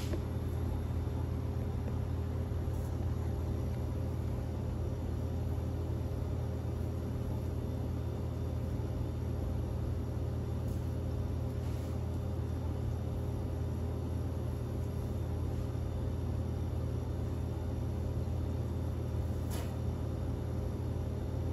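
Steady low hum of kitchen equipment, with a few faint taps of a knife on a plastic cutting board as fish is sliced.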